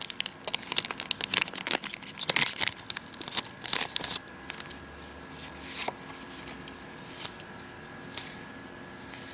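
Foil Cardfight!! Vanguard booster pack being torn open and crinkled in the hands, a dense crackling for about the first four seconds. After that it goes quieter, with a few light clicks as the cards are handled.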